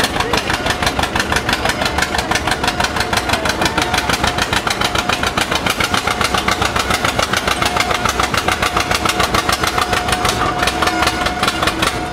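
John Deere B's two-cylinder engine popping in a fast, even beat under full load as the tractor drags a weight-transfer pulling sled.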